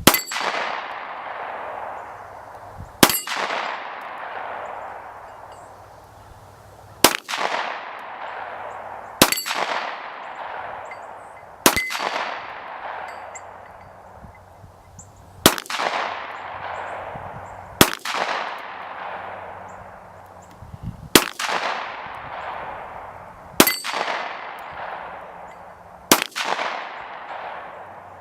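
Smith & Wesson M&P pistol, converted from .40 S&W to 9mm, firing ten sharp shots at irregular intervals of two to four seconds. Each shot is followed by a long ringing tail.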